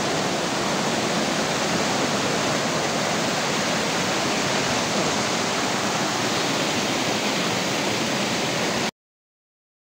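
Loud, steady rush of river water pouring over a series of small rocky cascades and weirs. The sound cuts off abruptly near the end.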